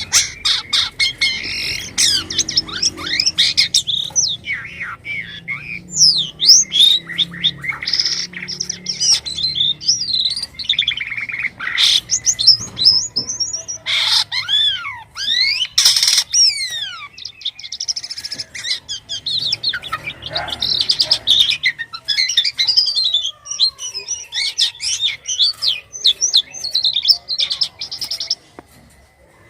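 Jalak kapas starling singing loudly and continuously: a varied, fast stream of chirps, whistles and squeaky notes gliding up and down, with an abrupt start and a stop near the end.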